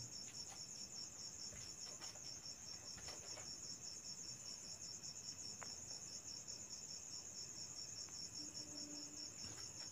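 Faint crickets chirping in a rapid, even, unbroken pulse, with a few soft clicks.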